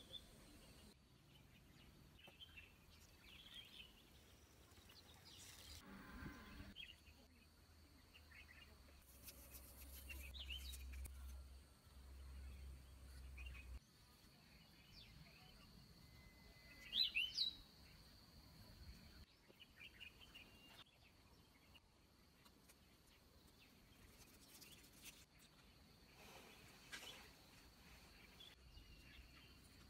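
Quiet outdoor ambience with faint, scattered bird chirps and one louder, rising chirp a little past halfway.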